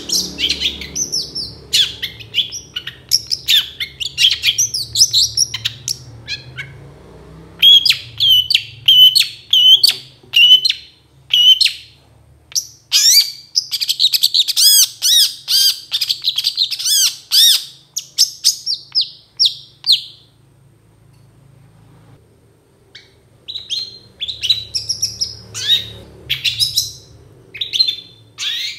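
Caged long-tailed shrike (cendet) singing a fast, loud run of sharp chirps, chatters and trills. The song breaks off for a few seconds about two-thirds of the way through, then starts again.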